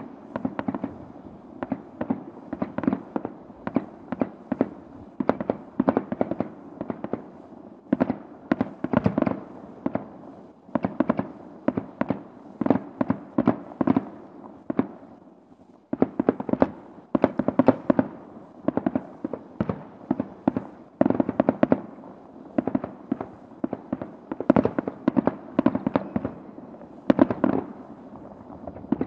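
Fireworks going off in rapid clusters of sharp bangs and crackles, with short lulls about ten and fifteen seconds in.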